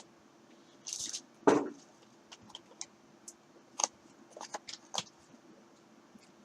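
Tabletop handling noises while a name is written on a trading-card box with a marker: a brief rustle, a thump about one and a half seconds in, then scattered light clicks and taps.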